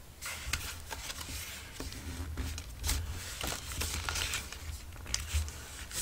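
Patterned scrapbook paper rustling and crinkling as a glued, folded paper accordion is handled and pressed down by hand, with irregular soft taps and clicks.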